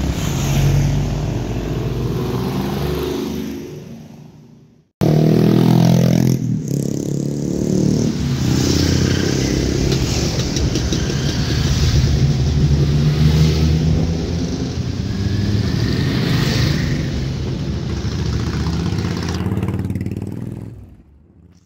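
Motorcycles riding past one after another, their engines swelling and fading as each goes by. The sound dies away about four seconds in, cuts back in loud about a second later, and fades out near the end.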